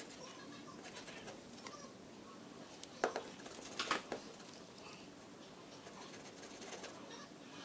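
Faint scratching and rustling of a pen on paper, with two sharper clicks about three and four seconds in.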